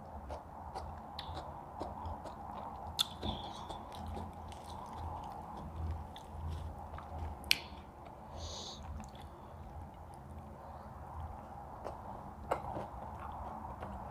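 Close-up eating sounds: chewing and biting, with a few sharp clicks along the way.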